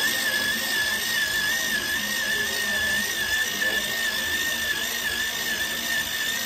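Electric pencil sharpener running as a pencil is sharpened: a steady high motor whine that wavers slightly in pitch, over a grinding hiss.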